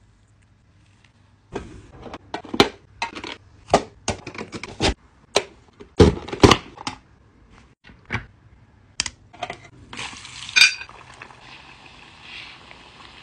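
Kitchen utensil clatter: a metal spoon clinking, then the plastic lid of a vegetable chopper clacking down as it forces a potato through its cutting grid, with two loud clacks about six seconds in. From about ten seconds in, a steady sizzle of potato strips frying in hot oil in a small pot.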